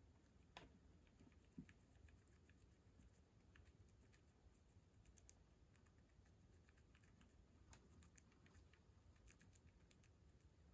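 Faint, irregular tiny clicks and crunches of a baby hamster nibbling a cabbage leaf, over near silence, with a couple of slightly louder clicks in the first two seconds.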